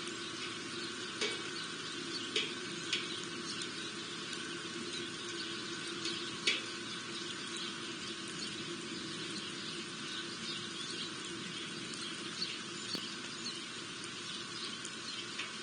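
Small birds at a feeder giving short, high chirps over a steady background hum, with a few louder sharp chirps about a second, two and a half seconds and six and a half seconds in.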